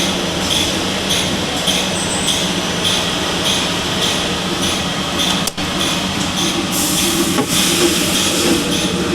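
Power bandsaw machine running steadily, with a regular ticking about twice a second over the running noise.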